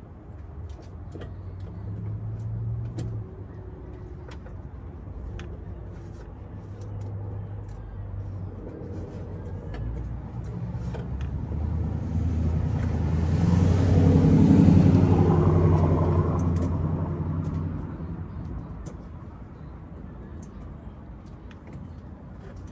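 A motor vehicle passing by, its engine and tyre noise rising to a peak about two-thirds of the way through and then fading away, with small scattered clicks throughout.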